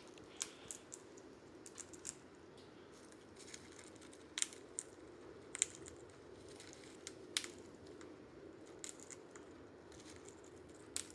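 Faint, irregular sharp clicks and taps of a small bird pecking at food and hopping on a hard surface, a dozen or so at uneven gaps.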